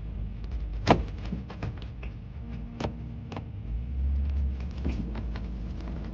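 Steady low rumble with irregular knocks, clicks and rattles over it. The sharpest knock comes about a second in, with others near the three-second mark.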